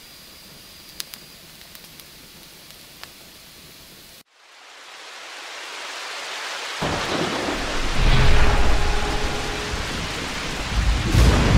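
Rain and thunder: a faint, steady hiss of rain with a few sharp ticks cuts off about four seconds in. A rushing roar then swells up, with deep thunder rumbling in from about seven seconds, peaking soon after and swelling again near the end.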